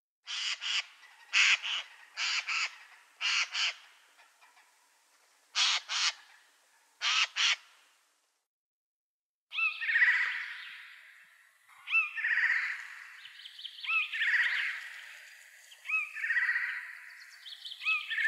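Eurasian jays giving harsh, rasping screeches, mostly in pairs, for the first seven seconds or so. After a short silence, a different sound repeats about every two seconds.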